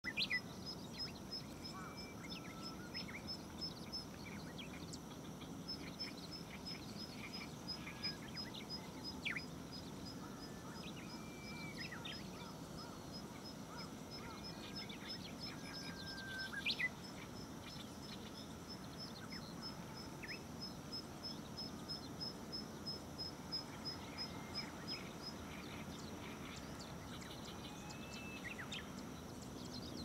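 Birds chirping and calling beside a river over a steady low background noise. A high, regular series of short notes repeats about three or four times a second, pauses briefly and stops near the end. A couple of louder sharp calls come, one near the start and one a little past halfway.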